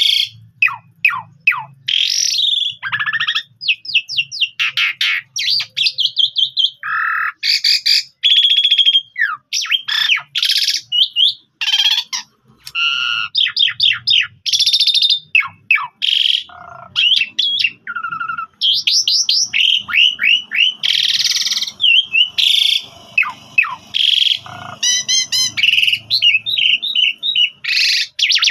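Asian pied starling singing a long, varied song almost without pause: quick runs of falling whistled notes, trills and harsh, scratchy calls.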